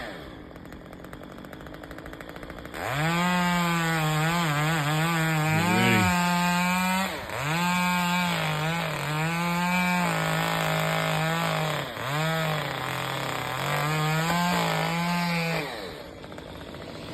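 Two-stroke chainsaw running quietly at first, then opened up to full throttle about three seconds in and cutting wood for some thirteen seconds. Its pitch sags briefly twice as the chain bites into the cut. It drops back to idle near the end.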